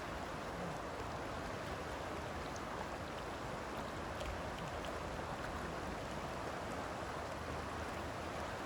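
Steady rush of river water flowing over the shallows, with a few faint ticks.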